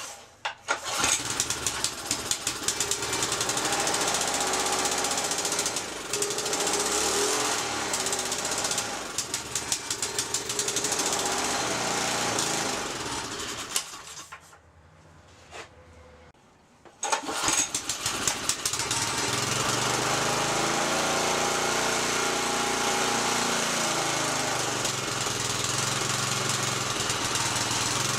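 Rototiller's small gasoline engine starting about a second in and running with its speed wavering up and down. It dies about halfway through, stays quiet for about three seconds, then starts again and runs steadily. This is the engine running after its seized main throttle was freed and cleaned.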